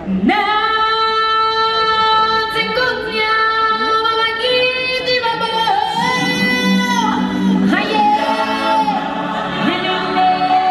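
A woman singing slow, long-held notes over music, a song from a live stage show; a lower voice or part joins about six seconds in.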